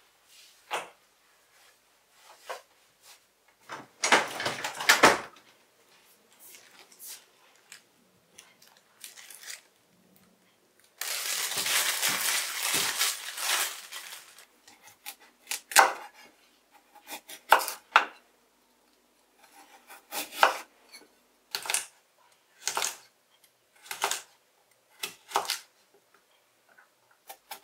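Food preparation on a wooden cutting board. A plastic produce bag crinkles for about three seconds in the middle. Then a kitchen knife cuts carrots, with separate sharp knocks of the blade on the board about once a second, among scattered knocks of things being set down.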